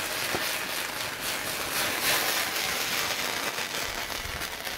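A ripping-hot pan of shallots, butter and just-flambéed cognac sizzling over a fire: a steady hiss with faint crackles.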